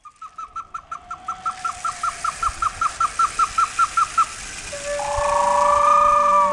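A bird calling in a fast, even series of short hooked notes, about six a second, growing louder over the first four seconds. About five seconds in, sustained music tones come in and swell.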